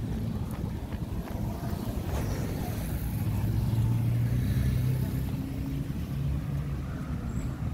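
Street noise heard while walking with a phone: a low, fluctuating rumble from wind on the microphone and road traffic, with a low engine-like hum swelling briefly about halfway through.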